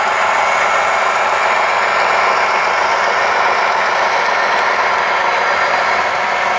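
HO scale model train of double-stack container well cars rolling past behind a Union Pacific diesel, its wheels giving a steady, even running noise on the track.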